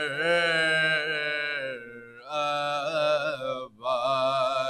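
Male voices reciting a marsiya, an Urdu elegy, in unaccompanied chorus: long, wavering held notes sung in three drawn-out phrases with short breaths between them.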